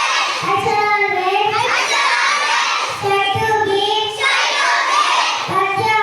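A group of children singing together in unison, holding long drawn-out notes of about a second each.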